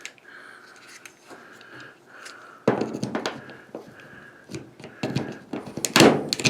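Small plastic parts of a washing machine's lid switch being handled: faint clicks, then from about three seconds in a louder run of knocks and rattling.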